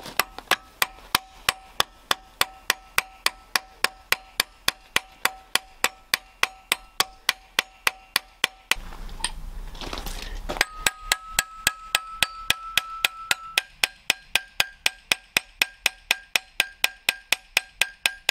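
Hammer peening steel rivets on a flat steel hasp plate held in a bench vise: steady blows about three a second, each ringing with a clear metallic tone. After a pause of about two seconds, a little before halfway, the blows resume with a higher ring.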